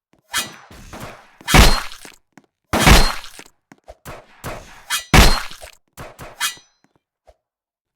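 A series of sudden knocks and crashes, the three loudest about one and a half, three and five seconds in, with smaller knocks between them.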